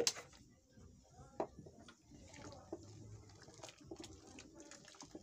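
A wooden stick stirring thin millet-and-sorghum porridge in a metal pot over a wood fire, with scattered light knocks. A sharp click right at the start is the loudest sound.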